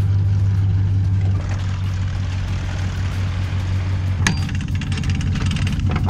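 Vehicle engine idling steadily, a low hum, with a sharp click about four seconds in followed by light rattling.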